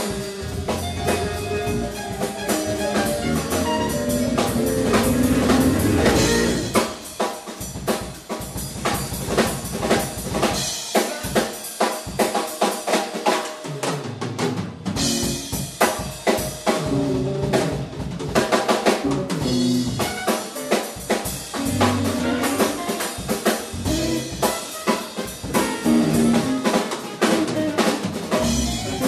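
Live band playing a funk groove, with the drum kit to the fore over electric guitar and bass. For several seconds around the middle the bass drops out, leaving mostly drums, before the full band comes back in.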